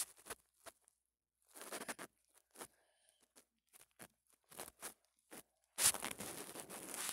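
Irregular soft taps and rustling noise close to the microphone while a phone's on-screen keyboard is typed on. A longer rustle comes near the end.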